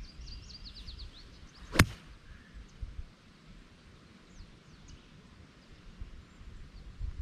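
A golf club striking a Bridgestone e12 Contact golf ball: one sharp crack about two seconds in. Small birds chirp in short falling notes just before the shot, over a faint low wind rumble.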